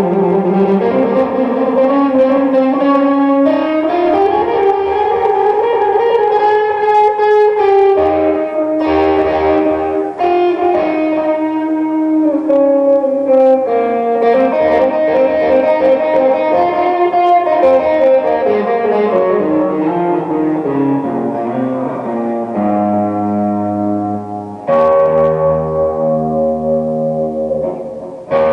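Electric guitar played slowly through effects with light distortion, improvising a slow blues line with held notes that bend up and down, moving to sustained chords in the second half.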